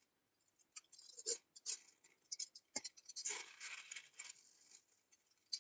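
Aluminium foil crinkling and rustling faintly under hands rolling up a sheet of dough, in scattered small scratchy clicks with a longer rustle about halfway through.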